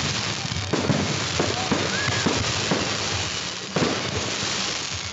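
Fireworks display: aerial shells bursting in quick succession, with repeated sharp bangs over a continuous crackling noise.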